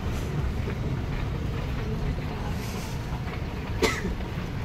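Airport moving walkway running with a steady low rumble underfoot. A sharp click sounds a little under four seconds in.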